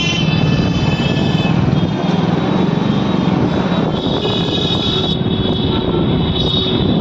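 Town street traffic heard from a moving vehicle: a steady rumble of engines and road noise, with high steady tones coming and going.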